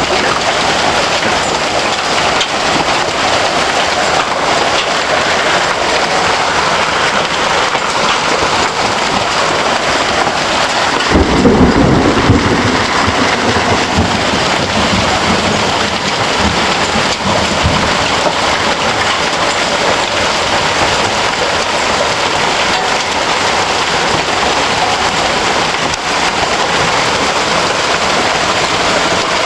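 Hailstorm: hail and heavy rain pelting down in a steady, dense clatter on the ground and surfaces around. About eleven seconds in, a louder low rumble of thunder breaks through and fades over several seconds.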